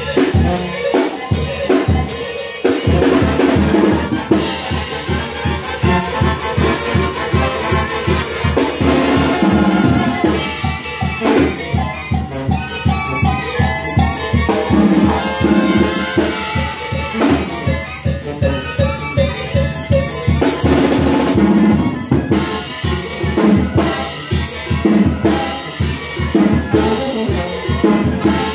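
Band music with brass and drums, keeping a steady dance beat.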